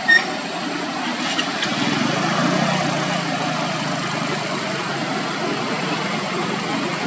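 One very short, high squeak from a baby macaque right at the start, over steady background noise.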